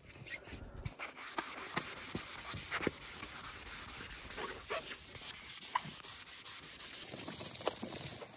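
A cleaning pad scrubbing foamy cleaner over vinyl car interior trim: a steady rubbing hiss with small scuffs from the strokes.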